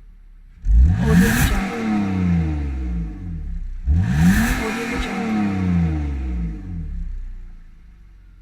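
BMW 325i straight-six engine revved hard twice, about three seconds apart; each time the pitch shoots up and then sinks slowly back to a low idle.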